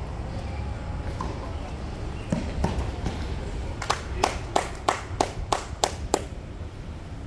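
A tennis ball bounced on the court about eight times in quick succession, roughly three bounces a second, the usual bouncing before a serve. A steady low rumble lies underneath.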